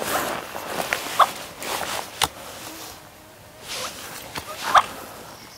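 Rustling of clothing and leaf litter as a seated hunter shifts and shoulders a shotgun, with a few short crunches (the loudest about a second in and near the end) and one sharp click a little over two seconds in.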